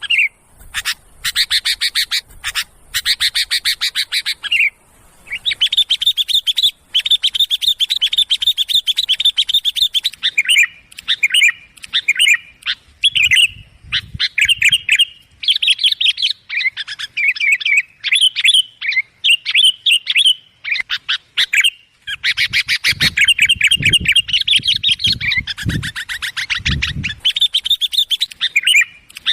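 Sooty-headed bulbuls chattering loudly in dense runs of rapid, high notes with short breaks, the busy calling used as a lure to draw bulbuls in. A few low thumps come about three quarters of the way through.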